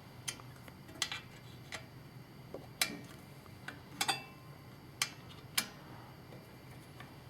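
Allen key clicking against a screw and metal as the clamping screw on an angle grinder's cutting guide is tightened: a string of short, sharp metallic clicks, roughly one a second and unevenly spaced.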